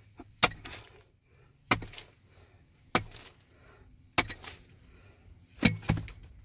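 Repeated sharp blows, like something being struck or chopped, about one every second and a quarter, each followed by a brief clatter. The last two strikes land close together.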